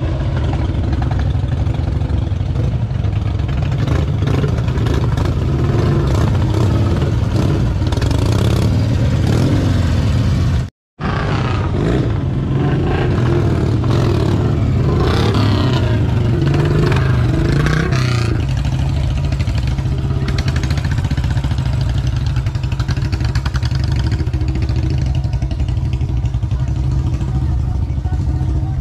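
Several motorcycle engines running and revving as the bikes ride slowly past, over a steady low rumble; the engine pitch rises and falls repeatedly in the middle stretch, broken once by a brief cut-out about eleven seconds in.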